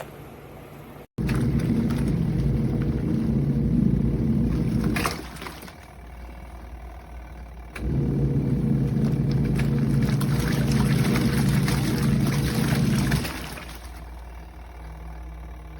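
Costway twin-tub portable washing machine running, its motor churning water and clothes in bursts of about four to five seconds separated by short pauses, like a wash agitator switching direction.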